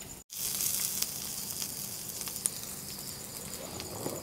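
Sliced onions sizzling in oil in a pan, slowly caramelizing over low heat, a steady hiss that is strongest about half a second to a second and a half in. Crickets chirp in an even pulse behind it.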